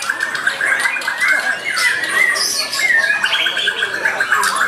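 White-rumped shamas (Bornean murai batu) singing in competition, several songs overlapping without a break: fast chattering runs of repeated notes mixed with quick whistled phrases and sweeps.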